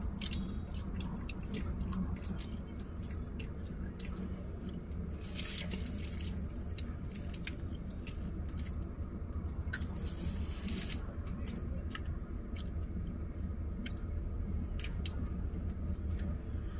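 Close-up eating sounds: chewing and small wet clicks of a burger being eaten, with the paper burger wrapper rustling twice, over a steady low hum in the car cabin.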